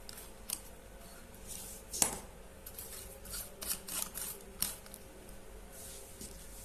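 Light clicks and taps of small tools and parts being handled while an opened light bulb is readied for soldering, the sharpest tap about two seconds in, over a faint steady hum.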